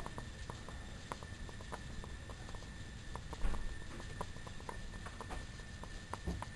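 Test-tube aeolipile (Hero engine) heated by a Bunsen burner: irregular quick clicks and pops, several a second, as the water boils and steam sputters from its spinning jets, with one louder pop about halfway through. A low steady rumble from the burner flame lies underneath.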